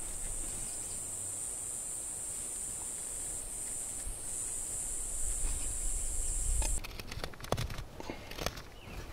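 An insect buzzing in a steady, high drone that cuts off abruptly about two-thirds of the way through. After it stops, a knife blade cutting into elderberry wood gives a few sharp scraping clicks.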